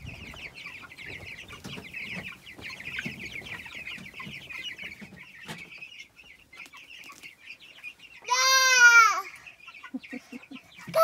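Young white broiler chicks peeping in a dense, continuous stream of short high chirps, fading about six seconds in. About eight seconds in, a loud squeal lasting about a second rises and falls in pitch.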